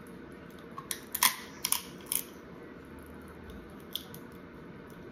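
Crab leg shell cracking and snapping as it is broken apart by hand to get at stubborn meat: a cluster of sharp cracks between about one and two seconds in, and one more near the four-second mark.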